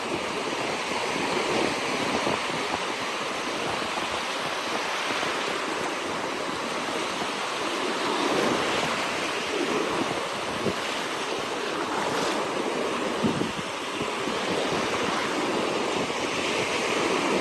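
Ocean surf breaking and washing onto a beach, a continuous rushing that swells and eases, with some wind on the microphone.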